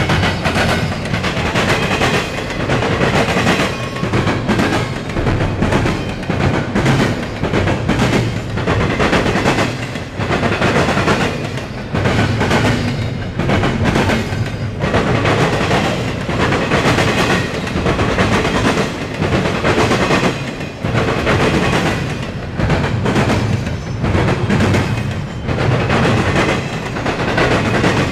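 Double-stack intermodal freight train cars running past close by, their wheels clattering in a repeating clickety-clack over rail joints.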